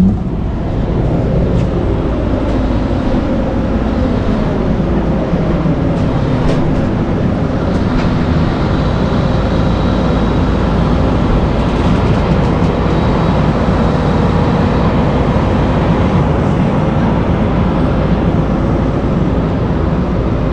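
Diesel engine of a 75-ton heavy rotator tow truck running steadily while its boom lifts a loaded shipping container, with a faint steady whine over it.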